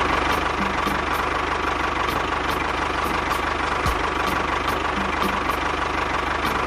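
A small engine running steadily at an even speed, with a constant whine.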